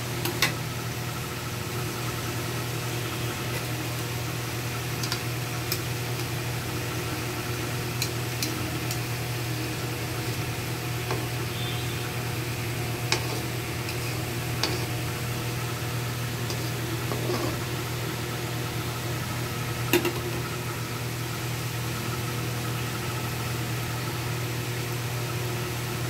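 Potato-filled pastry patties deep-frying in hot oil in a wok on medium heat: a steady sizzle with a sharp pop now and then, over a low steady hum.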